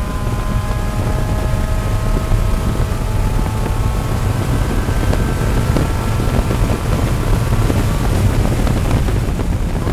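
Race car's engine at full throttle heard from inside the cockpit, revs climbing slowly in one gear down the straight, over heavy road and wind noise.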